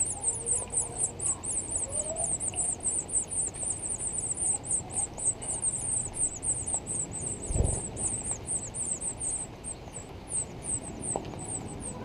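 House finch nestlings begging while a parent feeds them: a fast run of thin, high chirps, about five a second, that thins out to scattered calls over the last couple of seconds. A single low thump about seven and a half seconds in.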